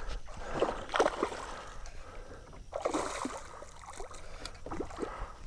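Scattered splashes of water and light knocks around a kayak while a hooked bass is being fought in, with a brief burst of splashing about three seconds in.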